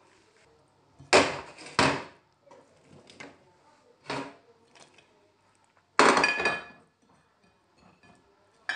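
Kitchen knocks and clatter: two hard knocks a little over a second in, a few lighter ones, then a ringing clatter of dishes or pans about six seconds in.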